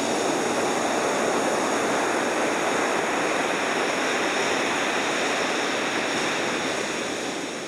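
Steady roar of ocean surf, fading out near the end.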